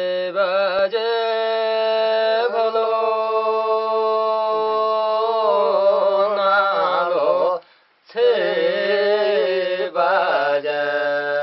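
A man chanting a ritual recitation in long held notes, with a brief break for breath about eight seconds in before the chant resumes.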